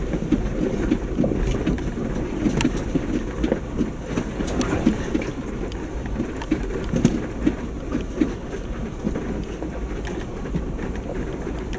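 2019 Jeep Wrangler Unlimited crawling slowly over a rocky dirt trail: tyres crunching over loose stones, with frequent small knocks and rattles from the body and suspension over a steady low rumble.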